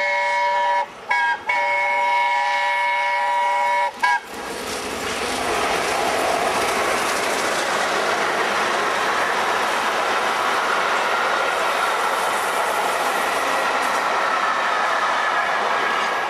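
Steam locomotive 60163 Tornado's chime whistle sounding as one held chord, broken twice about a second in and cut off about four seconds in. Then the train passes at speed with a loud, steady rush of coaches running on the rails.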